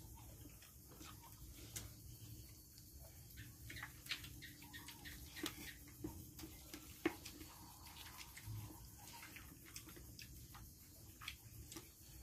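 Faint, irregular light clicks and ticks over a low steady hum, with one sharper click about seven seconds in.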